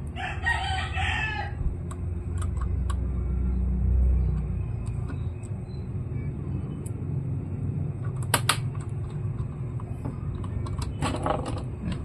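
Rooster crowing once at the start, over a steady low rumble, with a few small sharp clicks scattered through.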